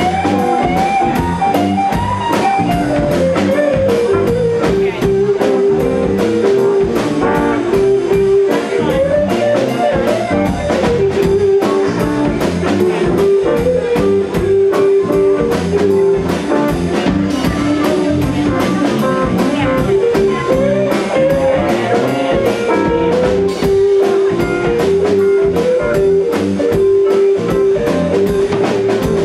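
Live blues band playing an instrumental passage: an electric guitar takes the lead with long held notes that slide and bend, over bass guitar and a drum kit keeping a steady beat.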